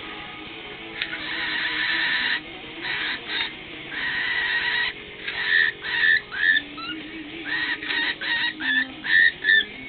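Cockatiel calling: a few long, harsh screeches, then a quick run of short chirps with bending pitch.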